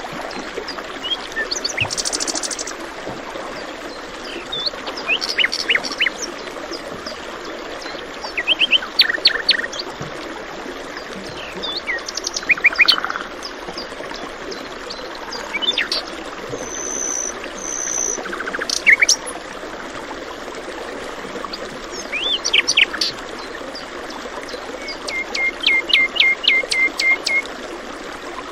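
Several birds singing and chirping in short phrases and trills, over the steady rush of running water. Near the end, a bird repeats one quick note about eight times in a row.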